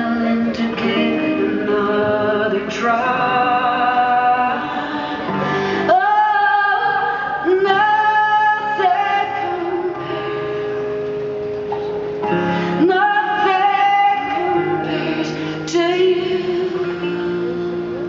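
Live concert music heard from the audience: a singer holding long notes over guitar and band accompaniment.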